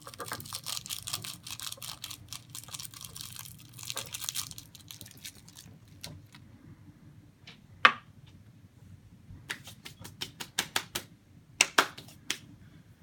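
Glitter being shaken out of its container into a cup: a dense rattling patter of fine clicks for about four seconds, then scattered taps and clicks with one sharp knock midway and a quick cluster of taps near the end.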